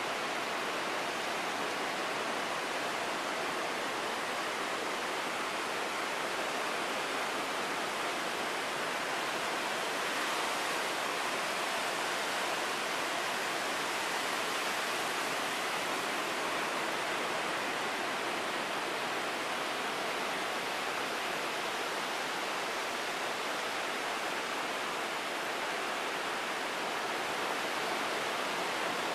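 Ocean surf: a steady, unbroken rushing wash of breaking waves, with no distinct surges rising or falling.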